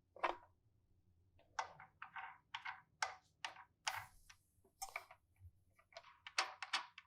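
Toilet seat's Snap to Secure mounting nuts being hand-tightened onto the hinge bolts: one click near the start, then from about a second and a half in a run of small, irregular clicks, a few a second.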